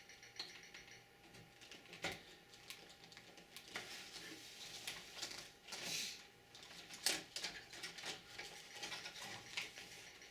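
Handling noise from an IDE ribbon cable and its plastic connectors being worked inside a PC case: scattered clicks and taps, a brief rustle about six seconds in, and a sharper click just after it.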